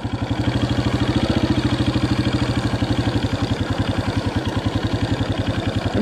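Engine of a farm bike running steadily while it moves slowly behind a mob of sheep: a continuous, evenly pulsing putter that holds at about the same level throughout.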